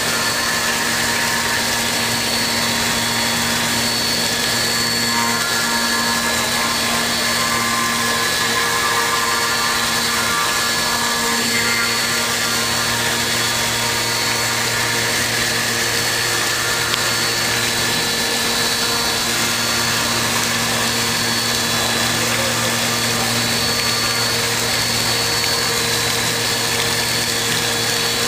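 5-axis CNC milling machine running a cut: a steady high spindle whine over a continuous machine hum and noise, unchanging throughout.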